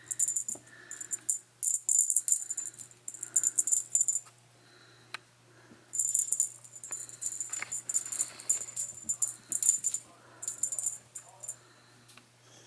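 Cat teaser toy jingling in irregular bursts as a kitten bats at it, with short pauses between the flurries.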